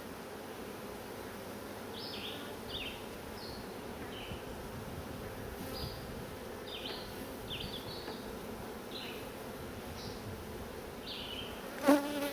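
Honeybees humming steadily around an open hive while frames are handled, with short high chirps over the top. One sharp knock sounds near the end.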